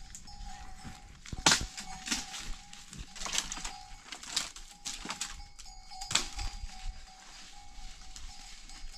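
A series of about seven sharp knocks or clicks at uneven intervals, the loudest about a second and a half in. A faint steady high tone comes and goes behind them.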